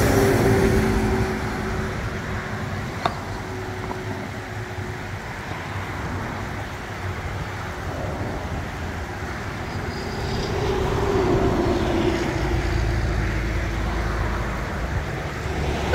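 Road traffic going by on a highway: a steady wash of tyre and engine noise that swells as vehicles pass, near the start and again about two-thirds of the way through. A single sharp click about three seconds in.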